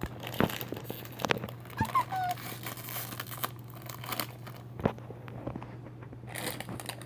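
A plastic blind bag crinkling and tearing as it is opened by hand, with several sharp clicks and crackles as it is handled.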